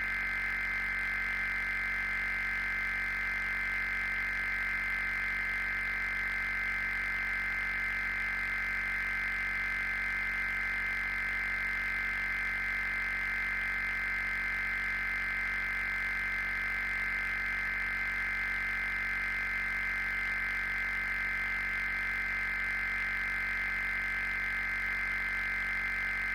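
Steady, unbroken high-pitched electronic tone from an emergency alert broadcast: several close pitches held without any change, over a faint low hum.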